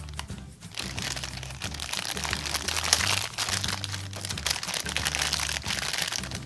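Small plastic toy-toilet parts handled and fitted together: a dense run of clicks, scrapes and rubbing from about a second in, over background music with a low bass line.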